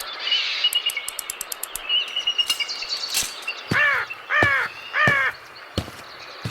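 Outdoor ambience with small birds chirping and a crow cawing three times in quick succession past the middle, with a run of quick clicks near the start.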